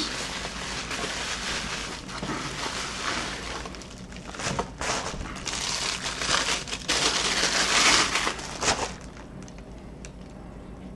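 Bubble wrap and plastic packaging crinkling as a camera lens is unwrapped by hand, in uneven spurts. The crinkling is loudest about seven to nine seconds in, then dies down near the end.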